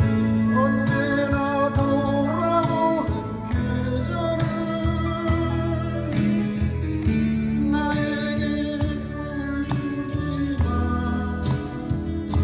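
A man singing into a microphone over amplified acoustic guitar and accompaniment, in a live outdoor performance with a wavering vibrato in the voice.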